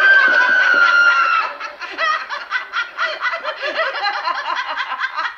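A woman's high-pitched scream that breaks off after about a second and a half, followed by rapid, continuous laughter.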